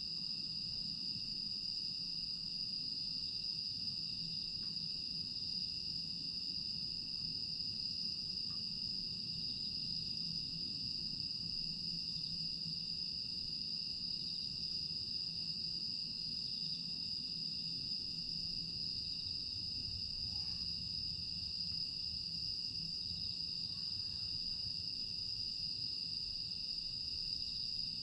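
Night chorus of crickets and other grass insects, a steady unbroken high-pitched trilling, over a faint low rumble.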